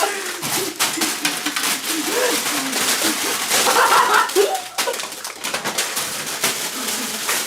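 A young child's high-pitched voice babbling and cooing without clear words, amid many short clicks and rustles.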